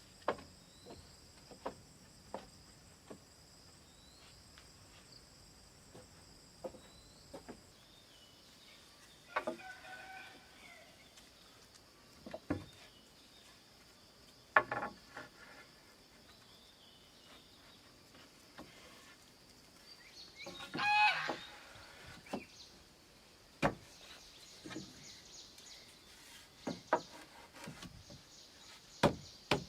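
Sharp, irregular knocks and cracks of wood being worked with hand tools, a few seconds apart, over a steady high insect trill that stops about a quarter of the way in and comes back later. A brief rasping sound comes about two-thirds of the way through.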